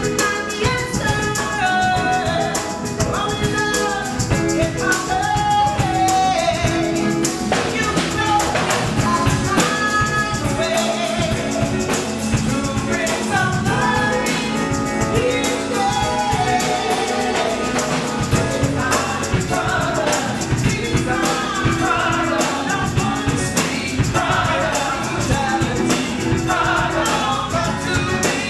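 Live band music: a mixed group of men and women singing together, a woman's voice leading, backed by bass guitar, piano and drum kit keeping a steady beat.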